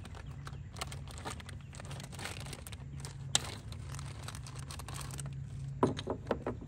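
Plastic packaging crinkling and rustling as small kit parts are handled, with one sharp click about three and a half seconds in and a few louder knocks near the end.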